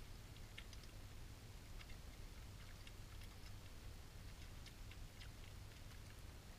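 European badgers feeding, with faint, irregular clicks of chewing and crunching food a few times a second over a steady low hum.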